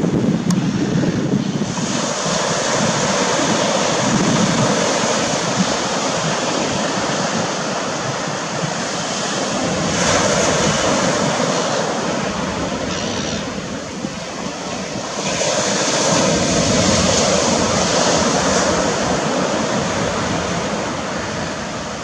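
Surf breaking on a sandy beach: a steady rush of waves that swells about ten seconds in and again near the end, with wind gusting on the microphone.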